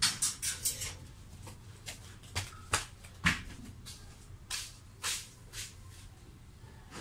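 Small scattered clicks and taps of a gauge circuit board and hand tools being handled on a workbench during soldering, a quick cluster in the first second and then single clicks every second or so, over a low steady hum.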